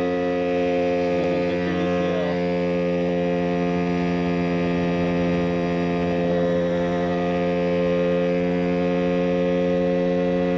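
Mosquito Air ultralight helicopter's engine and rotor running steadily in flight, heard from on board: a loud, even drone made of several steady tones.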